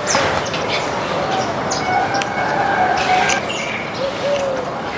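Flock of small birds chirping busily in short, high notes, with a few lower arching calls underneath.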